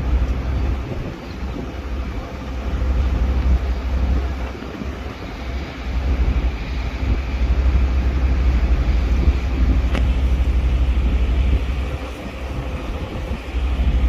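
Wind buffeting the microphone on the deck of a moving ferry, a low rumble that rises and falls in gusts over the steady drone of the ferry's engine and water.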